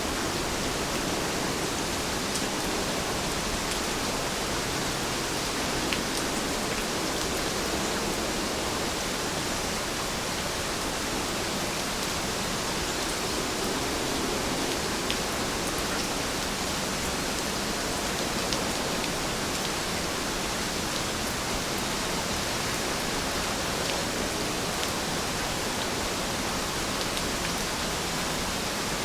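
Heavy rain falling steadily, an even hiss with a few faint sharp drop ticks here and there.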